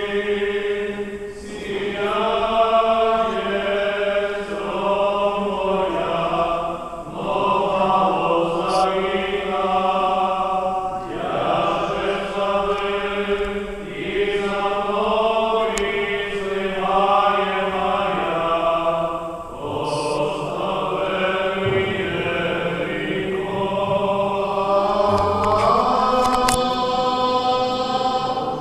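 Eastern-rite liturgical chant: voices singing long held notes in phrases of a few seconds, each separated by a brief pause.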